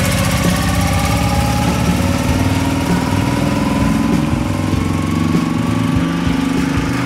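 BMW Isetta bubble car's single-cylinder four-stroke engine running as the car drives off, its note drifting gently up and down with the revs.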